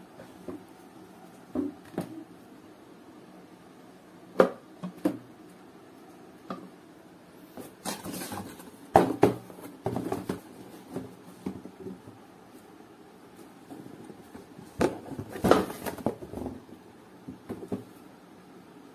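Cardboard cookware box being handled and turned over by hand: scattered knocks and taps, with longer scraping rustles about eight and fifteen seconds in.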